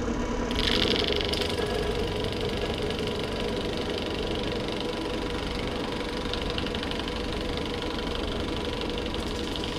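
Benchtop drill press running steadily as a 15/32-inch brad point bit is fed into vinyl J-channel. A brief high scrape comes about half a second in, and a rapid rasping scrape runs through the last few seconds as the bit's outer edge cuts around the hole.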